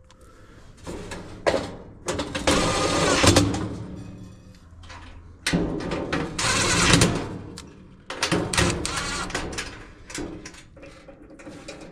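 Cordless drill/driver whirring in three short runs, driving screws in.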